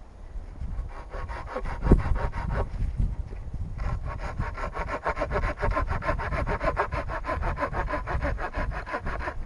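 Hand saw cutting through wood: a first run of strokes, a brief pause, then about five seconds of steady, even sawing. A single knock comes about two seconds in.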